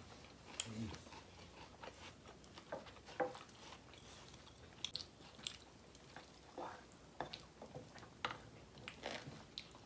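People chewing and biting food by hand-fed mouthfuls: faint, scattered wet smacks and crunches at irregular intervals.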